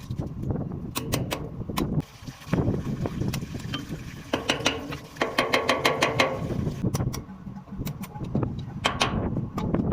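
Metal tools working on a hydrant fitting: scattered clicks and knocks, with a rapid run of clicks about halfway through, over a steady low rumble.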